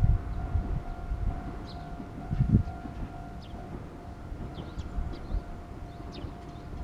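Japanese level-crossing alarm ringing, a steady repeating electronic tone, with a low rumble underneath that is loudest at the start and again about two and a half seconds in.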